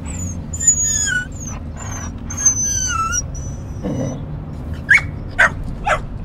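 Dog whimpering in thin, high, falling whines, then three short yips about half a second apart near the end.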